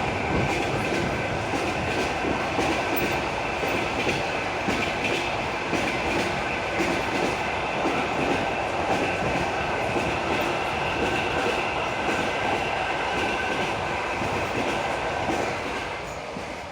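Railway carriage wheels clicking rhythmically over the rail joints of jointed track, with a steady rumble, heard through an open train window. It fades near the end.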